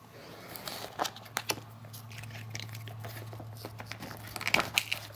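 Rustling and short clicks of a power cord and plastic plugs being handled as an extension cord is pushed onto a battery maintainer's plug. A faint low hum runs under the middle of it.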